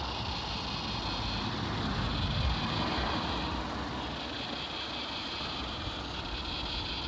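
Wind buffeting the microphone outdoors under a building storm: a steady rushing noise with an uneven low rumble that swells about two seconds in.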